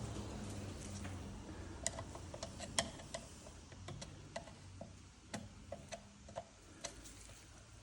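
Irregular small clicks and taps of hard parts being handled, about one or two a second, as a cable is pushed into place with a screw while fitting a lamp holder.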